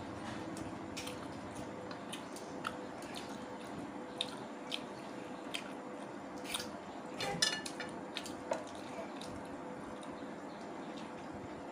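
Close-up eating sounds of someone eating rice and curry by hand: irregular wet smacking clicks of chewing and squishing of rice between the fingers, with a small cluster of clicks about seven seconds in, over a steady faint hum.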